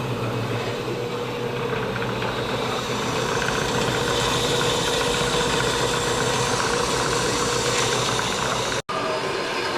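A machine running steadily with a low hum, growing brighter and hissier about three seconds in, cut off abruptly near the end.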